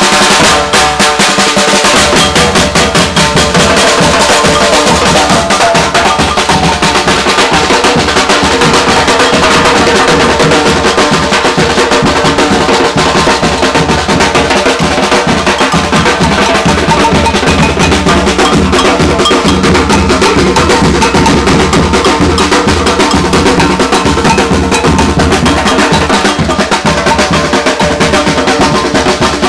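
Batucada percussion group playing drums in a fast, dense, steady rhythm.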